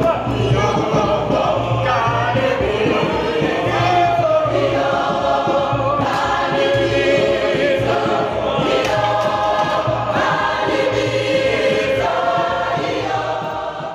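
A large mixed gospel choir of men and women singing together in full voice, with a repeating low bass note beneath.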